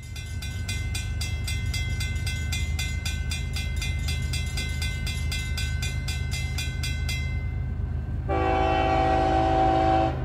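Grade-crossing warning bell ringing rapidly, about four or five strikes a second, over the low rumble of a freight train. The bell stops about seven seconds in, and near the end the locomotive's air horn sounds one long blast.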